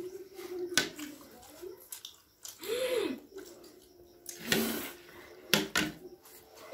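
Wet slurping, sucking and chewing mouth noises of people eating steamed momos straight off their plates, broken by short hummed vocal sounds and a few sharp smacks.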